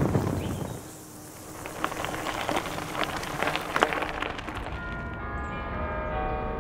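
A low rumble fades out, then scattered sharp clicks and crackles follow for a couple of seconds. From about four and a half seconds in, bells ring with many long, overlapping tones.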